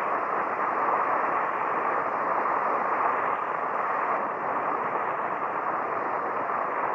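Steady hiss and surface noise of an old radio transcription recording, with no speech or music over it.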